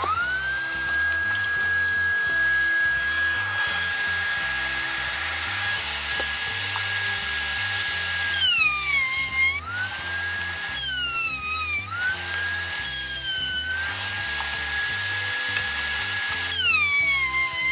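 Table-mounted wood router spinning up to speed and then routing a groove in plywood. Its steady whine drops in pitch each time the bit bites into the wood, about four times in the second half, and recovers between bites.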